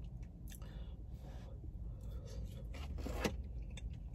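Soft scrapes, clicks and rustling of takeout food containers and a plastic cup being handled, loudest about three seconds in, over a steady low rumble.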